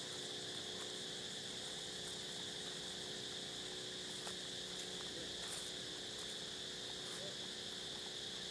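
Steady high-pitched insect drone with a low hum beneath it and a few faint ticks.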